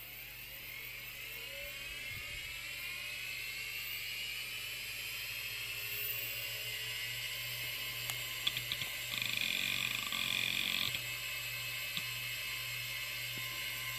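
Computer hard drive spinning up: a rising whine that climbs and settles into a steady high whine over a low hum. Between about 8 and 11 seconds in, the heads seek with a burst of clicks and chatter.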